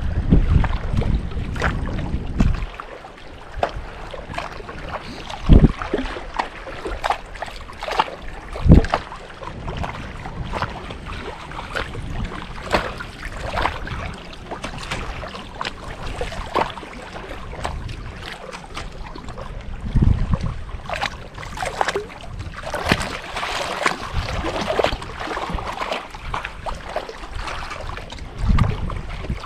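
Wind buffeting the microphone for the first couple of seconds, then small choppy lake waves lapping and slapping against the hull of a small boat, with scattered light knocks and two louder thumps about five and a half and nine seconds in.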